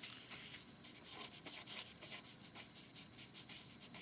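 Pen writing on paper: faint, quick scratching strokes as a word is written out by hand.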